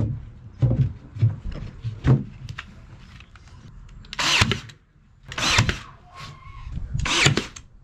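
Ryobi AirStrike cordless nailer firing three times over about three seconds, a short loud whack and whoosh each time, driving nails through a particleboard cabinet side panel. Before that, a few dull knocks as the panel is set against the cabinet.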